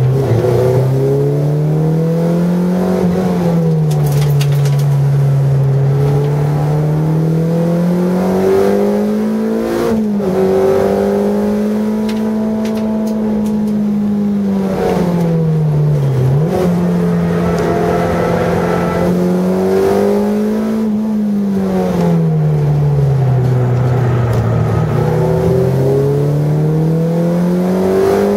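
A car engine heard from inside the cabin while being driven hard, its pitch rising under acceleration and falling off into the corners in long, repeated swells, with sudden short dips at gear changes about ten and sixteen seconds in.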